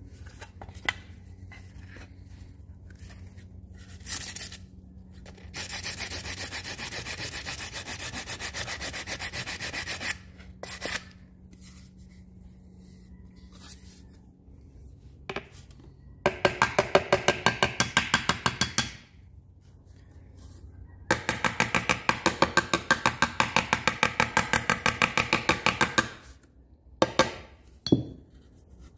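Aluminum seat molding being hand-sanded with sandpaper: rapid back-and-forth rubbing strokes in three spells, the second and third the loudest. A couple of sharp knocks come near the end.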